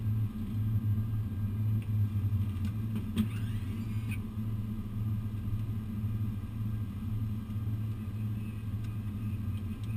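Steady low rumble and hum in an airliner's cockpit as the aircraft rolls along the runway during its landing rollout.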